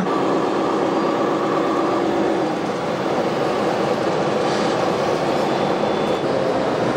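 Radio-controlled model vehicles running: a steady, dense engine-like drone of many tones, shifting slightly about two and a half seconds in.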